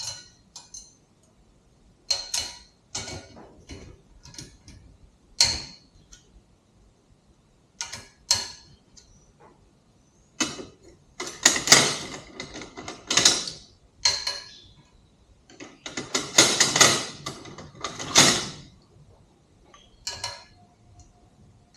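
Metal hand tools and hardware clinking and rattling: an Allen wrench and a 14 mm socket or wrench being handled on the bike's swing arm bolts. First a few separate clicks, then two longer spells of clattering about halfway through and near the end.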